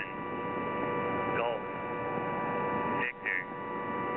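Shortwave receiver on the HFGCS 8992 kHz channel with no station talking: steady static hiss with several faint steady whistle tones. Two brief chirps of interference break in, one falling in pitch about a second and a half in, another about three seconds in.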